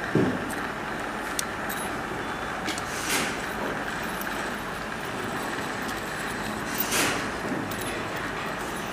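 Steady background noise, with two brief louder hissing swells, one about three seconds in and one about seven seconds in, and a few faint clicks.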